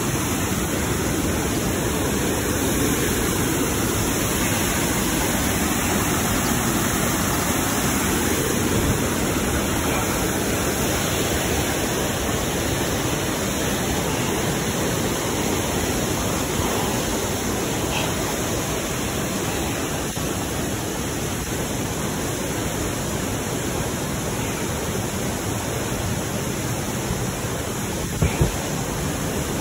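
Steady rush of a waterfall and the river below it, a little louder in the first half. A couple of short knocks come near the end.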